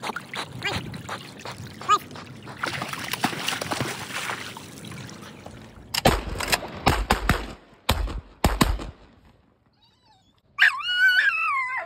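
Water sloshing and splashing as a retriever swims in with a duck, then a quick run of sharp bangs. Near the end a dog gives a high, wavering whine.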